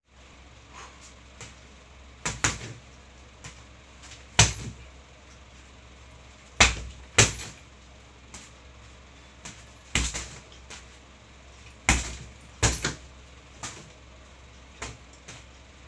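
Boxing gloves striking a hanging heavy punching bag: sharp smacks at an uneven pace, single blows and quick pairs a second or less apart, with lighter taps between them.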